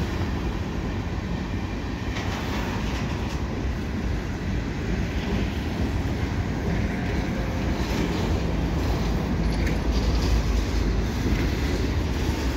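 Freight train cars rolling past: a steady low rumble of steel wheels on the rails, with a few faint clicks, slightly louder near the end.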